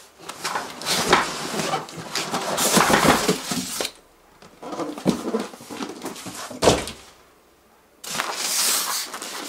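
A cardboard carton is turned over and slid up off its styrofoam packing, with cardboard and foam scraping and rustling. A sharp knock comes a little under seven seconds in, and a hissy rustle of the packing follows near the end.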